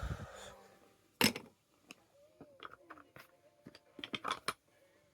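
Fridge magnets clicking and clattering against each other as they are handled in a box, a series of separate knocks. The sharpest knock comes about a second in, with a quick cluster of clicks near four seconds.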